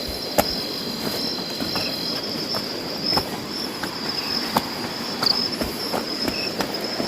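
A steady, high-pitched insect chorus, with scattered sharp clicks and knocks over a background hiss.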